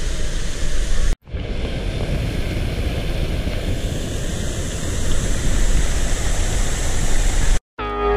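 Steady rushing of fountain jets splashing into a pool, with a heavy low rumble. It drops out briefly about a second in. Organ music starts at the very end.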